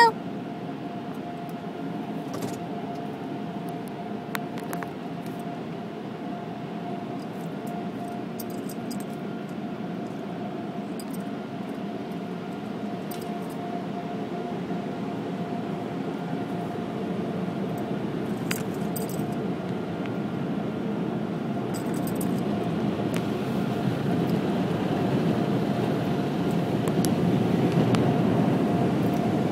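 Automatic car wash heard from inside the car: a steady rush of water spray and wash machinery with a constant hum, growing gradually louder over the last ten seconds or so, with scattered light clicks.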